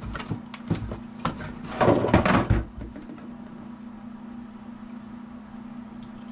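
Cardboard kit box being handled and shut: a string of knocks and cardboard rustles, the loudest a scuffing burst about two seconds in, then only a low steady hum.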